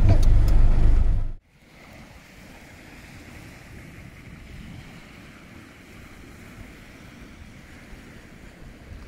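Loud low rumble inside a vehicle cab, cut off suddenly about a second and a half in, followed by small waves washing on a pebble beach with wind on the microphone.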